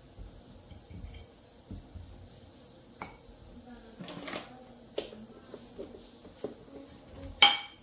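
Dishes and cutlery being handled: scattered light clinks and taps, then one loud ringing clink near the end.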